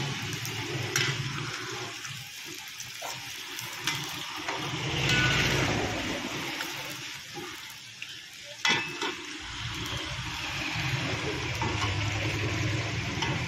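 Chicken pieces deep-frying in hot oil in an iron kadai: a steady sizzling, bubbling hiss that swells and fades. A few sharp clicks of the metal skimmer against the pan, the loudest about nine seconds in.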